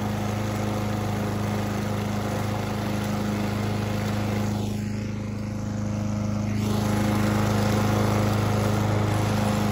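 Walk-behind gas lawn mower's engine running steadily while mowing grass: a constant low engine hum over a noisy blade and exhaust wash. It gets a little louder in the last few seconds.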